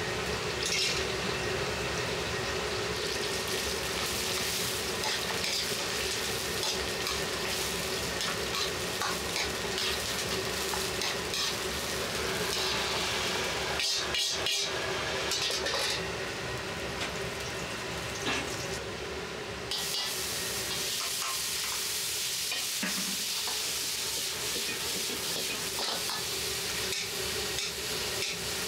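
Vegetables stir-frying in a wok over a gas burner: steady sizzling, with a metal ladle scraping and knocking against the wok, over a steady hum.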